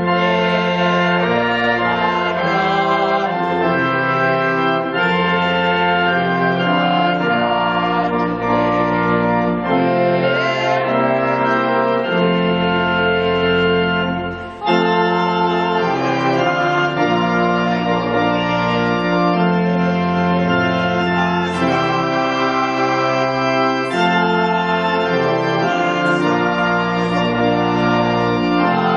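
Organ music: full sustained chords changing every second or two, with a short break about halfway through.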